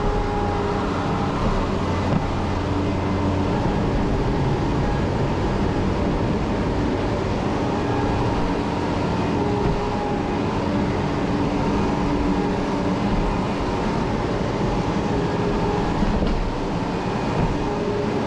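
Farm machinery running steadily, a constant low hum with a few held tones over it.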